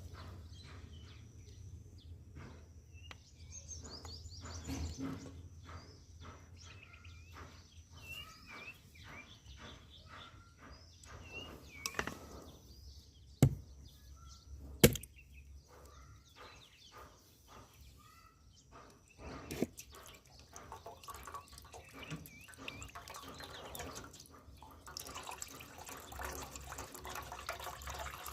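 Birds chirping at intervals over many small drips and clicks, with two sharp knocks near the middle. Near the end a steady rush of running water sets in.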